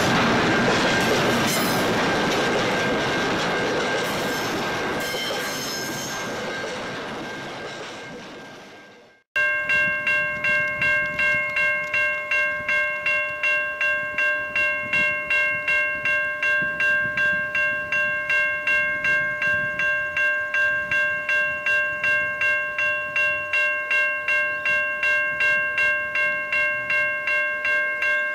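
Freight wagons rolling past with a steady wheel squeal, fading away over the first nine seconds. Then a level-crossing warning bell ringing, sharp evenly spaced dings about three a second.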